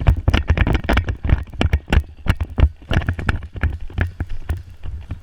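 A player running over the ground: quick, uneven footfalls with gear knocking and rattling, over a low rumble of the camera being jostled.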